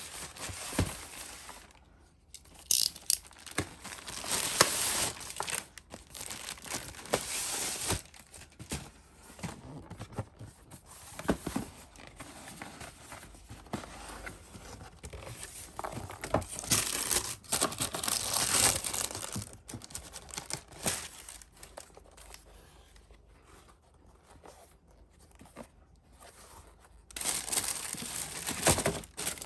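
Packaging being handled and torn open by hand: irregular bursts of crinkling and tearing, with quieter pauses between.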